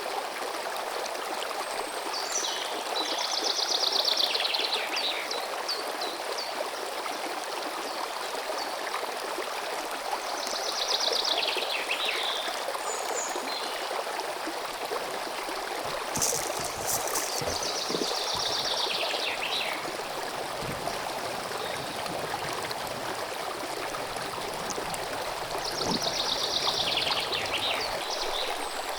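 Small stream running steadily, with a songbird singing four short, fast trills that fall in pitch, roughly every eight seconds.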